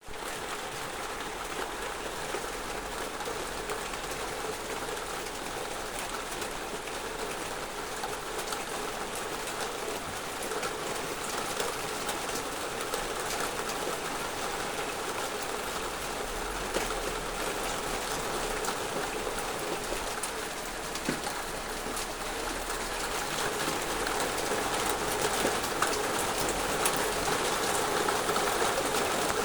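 Heavy downpour of rain: a steady hiss of rain with many fine drop ticks, growing louder in the last few seconds.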